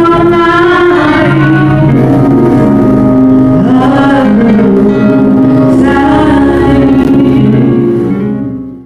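Music with singing over accompanying instruments, fading out quickly near the end.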